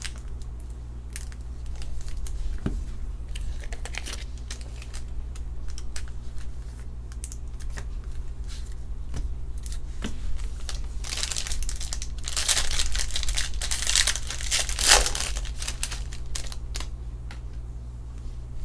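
Trading cards and their plastic sleeves being handled and shuffled, with scattered small clicks and rustles, and a denser stretch of crinkling and tearing of foil pack wrapper about eleven to fifteen seconds in, over a steady low hum.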